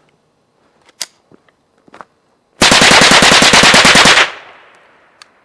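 Marlin Model 60 semi-automatic .22 LR rifle fired as fast as the trigger can be pulled: a rapid string of shots, about ten a second, lasting under two seconds, with an echo dying away after. A few faint clicks come before the string.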